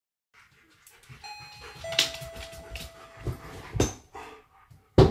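Two-tone doorbell chime: a higher note then a lower one, the lower note ringing for about two seconds. A dog makes several short sharp sounds over it.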